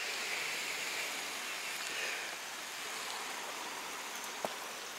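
Steady outdoor background hiss, with a single faint click about four and a half seconds in.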